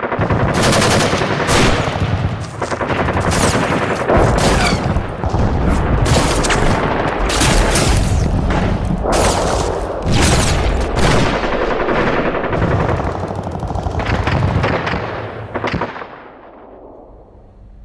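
Battle sound effect of dense, rapid gunfire over a low rumble, fading out about sixteen seconds in.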